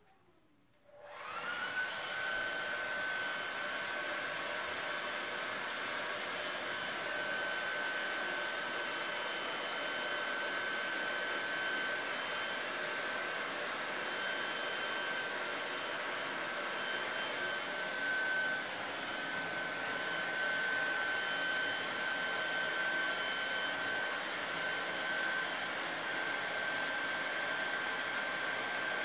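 Hand-held hair dryer switched on about a second in, spinning up with a quick rising whine and then running steadily, a high whine over a strong hiss. It is drying wet chalk-paste ink on a silkscreened craft banner.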